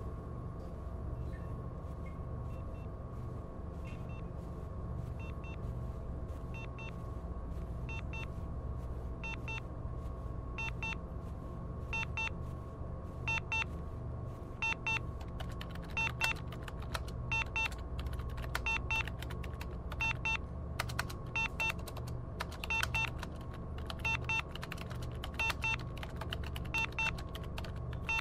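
Soundtrack sound design: a steady low electronic drone with sharp, clicky blips repeating about every second and a half, growing denser and doubling up in the second half.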